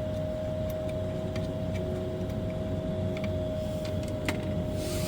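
Light clicks and taps of a small washer and potentiometer parts being handled, the sharpest about four seconds in, over a steady background hum with a high tone.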